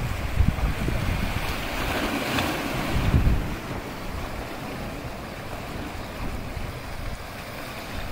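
Sea waves washing against breakwater boulders, with wind buffeting the microphone as a low rumble that is heaviest for the first three seconds or so. A swell of surf hiss rises about two seconds in, then the wash settles softer and steady.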